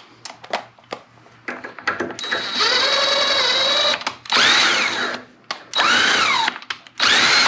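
Cordless power driver spinning a socket to run a nut down a threaded stud held in a vise. After a couple of seconds of small clicks from handling, the motor runs steadily for nearly two seconds, then gives three shorter trigger bursts that each speed up and wind down.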